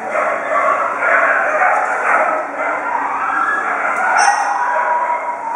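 Dogs whining and howling, a continuous wavering sound.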